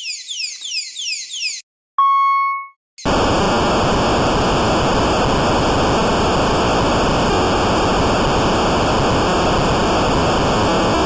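Emergency-alert-style alarm audio. First comes a fast series of high falling sweeps, about three or four a second. About two seconds in there is a single short beep, and from about three seconds in a loud, steady static hiss takes over.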